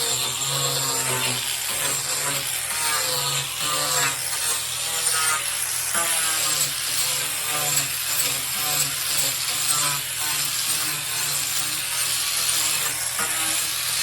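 Angle grinder with a carving disc cutting into a locust wood stump, running continuously with the motor's pitch rising and falling as the disc bites into the wood.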